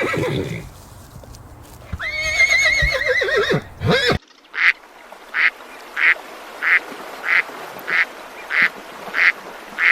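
A horse whinnies with a long, wavering call, then, after a cut, a duck quacks about nine times in an even rhythm of roughly one and a half quacks a second.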